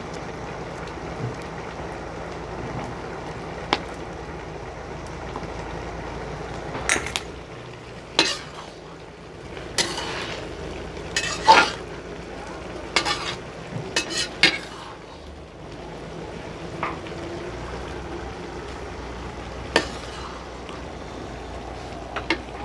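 A metal spoon scraping and knocking against a kadhai while Maggi noodles with vegetables cook, over a steady hiss from the pan. The knocks and scrapes bunch together in the middle, with a few single clinks before and after.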